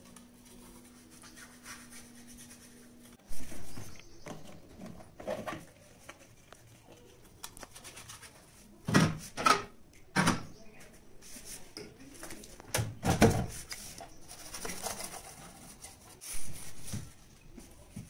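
Plastic door bins and glass shelves of an LG refrigerator knocking and rattling as they are handled and set back in place: scattered sharp knocks, the loudest cluster about halfway through.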